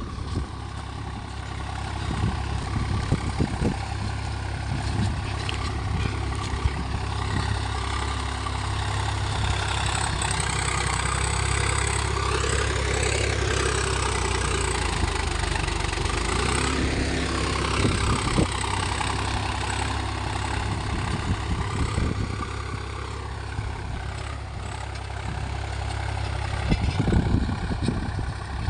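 Swaraj 744 XT tractor's three-cylinder diesel engine running steadily. It grows a little louder a few seconds in and eases off again near the end.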